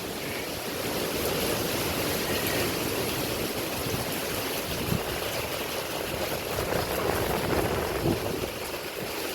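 A strong hurricane wind gust with rain, a steady rushing noise throughout. Two faint knocks come about five and eight seconds in.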